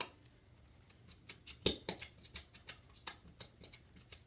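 Irregular small sticky clicks and taps, about three or four a second, starting about a second in, from slime ingredients being handled and mixed in a bowl.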